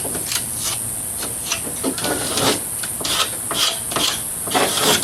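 A paintbrush brushing textured paint onto a boat floor: a string of short, uneven scrubbing strokes, about two a second.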